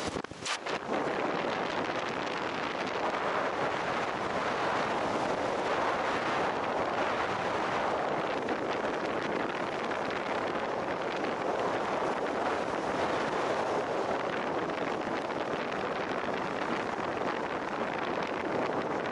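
Snowboard sliding through deep powder snow, a steady rushing hiss mixed with wind buffeting the microphone. There is a brief drop in the noise about half a second in.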